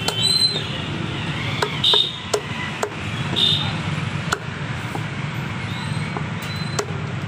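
Cleaver chopping chicken on a wooden log block: about ten sharp, irregular knocks. Under them runs a steady low street hum, with a few short high tones.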